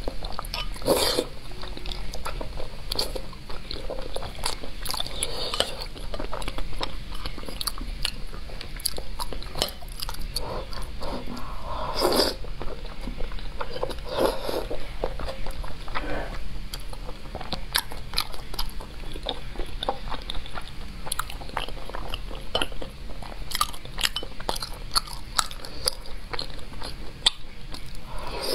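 Close-miked mouth sounds of eating braised pork with chili dip: biting, chewing and sucking, with many short, irregular clicks and smacks.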